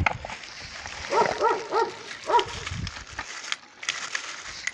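An animal gives four short pitched calls, each rising then falling, between about one and two and a half seconds in. Under them is the crinkle of plastic packaging being handled.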